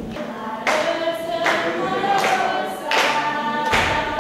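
A children's choir singing a song in chorus, coming in about half a second in with long held notes.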